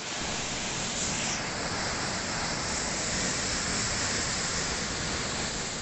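Flash-flood water rushing through a street, a steady, even rush of churning muddy water.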